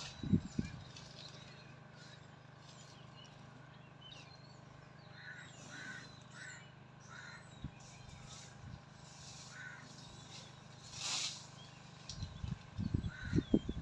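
Birds calling in the background, including a run of four short calls about half a second apart in the middle. A brief hiss comes about eleven seconds in, and low thumps sound at the very start and again in the last two seconds.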